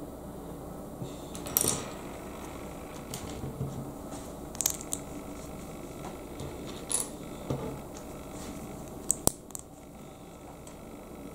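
Small plastic Lego pieces clicking and clattering as they are handled and pressed together, in scattered sharp clicks, with two sharp clicks close together near the end.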